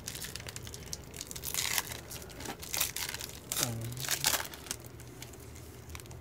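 A trading-card pack's foil wrapper being torn open and crinkled, in uneven crackly bursts that die away after about four seconds.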